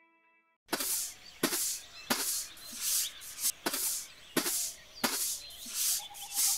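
Rhythmic scraping strokes against leaf-littered ground, about one and a half a second, starting under a second in.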